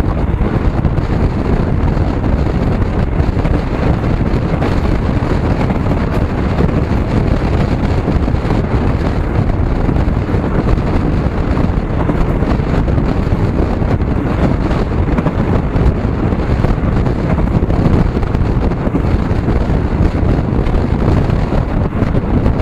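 Steady wind rumble on the microphone over the running and road noise of a moving vehicle, with no distinct events.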